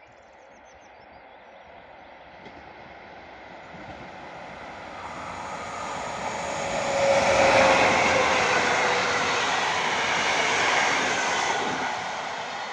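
An EP07 electric locomotive hauling three passenger coaches passes by. The noise of wheels on rails grows steadily, is loudest about seven seconds in, holds through the passing coaches and begins to fade near the end. A faint steady hum drops slightly in pitch as the train goes by.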